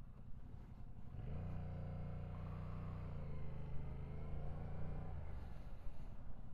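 2023 Yamaha MT-07's parallel-twin engine running low, then about a second in its note climbs as the motorcycle pulls away, dipping and rising again as it accelerates. About five seconds in it drops back to a low rumble.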